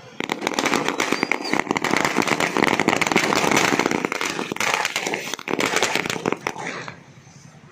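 Firecrackers going off on the ground in a rapid, dense string of pops that dies away near the end.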